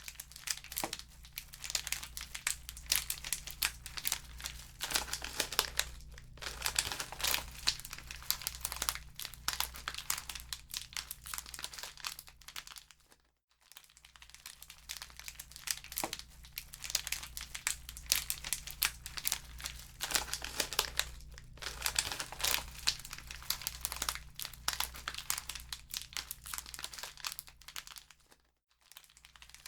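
Wood fire crackling in a fireplace: dense, irregular pops and snaps over a low steady hum, cutting out briefly twice.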